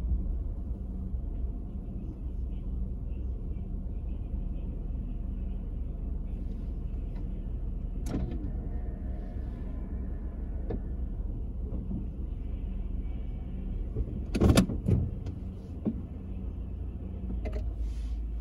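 A car creeping slowly through a drive-through car wash machine, heard from inside the cabin as a steady low rumble with a faint hum. There is a sharp click about 8 seconds in, a loud knock about 14 seconds in, and a few lighter clicks near the end.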